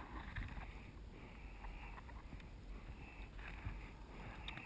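Double-bladed paddle strokes on a sea kayak: the blades dip and pull through calm water about once a second in an even rhythm, with a low wind rumble on the microphone.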